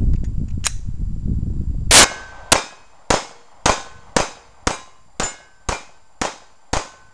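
Ruger SR22 .22 LR pistol fired ten times in quick succession, about two shots a second, each shot with a short metallic ring after it, as of bullets striking steel targets. A low rumble on the microphone comes before the first shot, about two seconds in.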